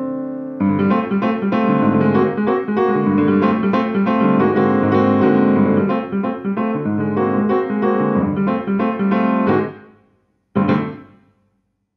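Yamaha piano played in a busy passage of chords and running notes that fades away about ten seconds in. A single final chord is then struck and left to ring out, ending the piece.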